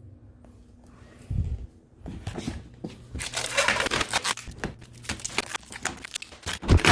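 A dull thump about a second in, then a busy run of rustling, clicking and scraping as drain hoses and fittings are handled and pushed into place in the cabinet under the sink.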